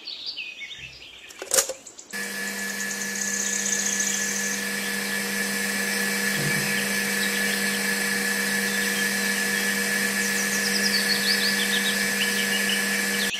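Small battery-powered toy DC motor switched on with a click about two seconds in, then running steadily with an even whine as it turns a miniature pump through a rubber-band belt.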